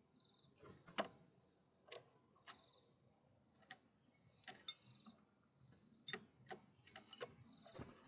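Irregular sharp taps and knocks, about a dozen, the loudest about a second in: a great spotted woodpecker moving about and pecking on a wooden feeder shelf with glass food bowls.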